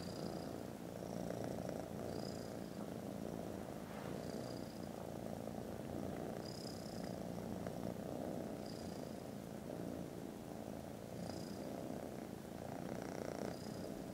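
Kittens purring loudly, a continuous low rumble that swells and eases every couple of seconds.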